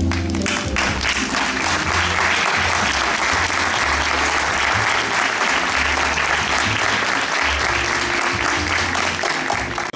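Audience applauding steadily, a dense clapping that cuts off suddenly at the end.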